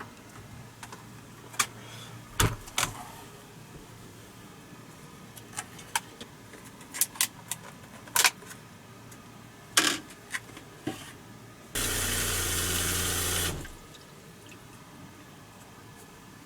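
A run of small clicks and knocks of things being handled, then water running hard for about two seconds with a low hum under it, stopping suddenly.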